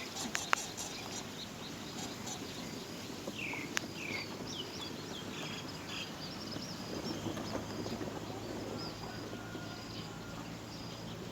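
Birds chirping outdoors: a quick run of short, high, downward-sliding chirps about three to four seconds in over a faint repeating high note, with a couple of sharp clicks near the start.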